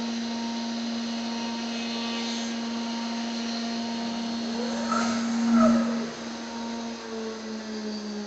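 CNC router running a cut, its spindle giving a steady whine over a mechanical hiss. About five seconds in, a rising-and-falling pitched sweep swells to the loudest point as the machine's axes move, then the tones settle again.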